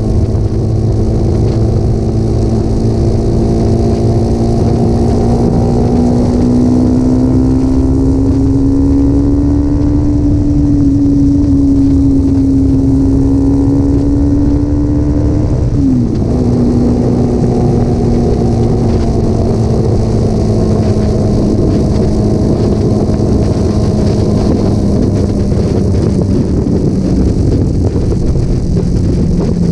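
Motorcycle engine with a Scorpion aftermarket muffler running steadily through the exhaust. Its pitch climbs slowly for about fifteen seconds, drops sharply about sixteen seconds in, then sags gently.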